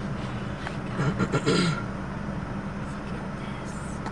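Steady low hum of a vehicle engine, with a brief voice heard about a second in.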